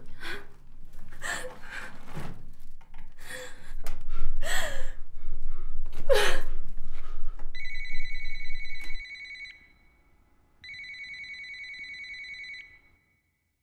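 A person's loud, breathy gasps over the first seven seconds or so, then a telephone ringing twice, each trilling ring about two seconds long with a short gap between.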